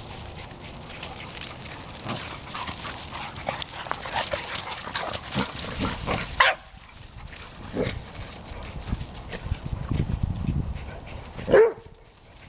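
A group of dogs playing rough together, paws scuffling through dry leaves and gravel, with short barks: a sharp one about six seconds in and the loudest one near the end.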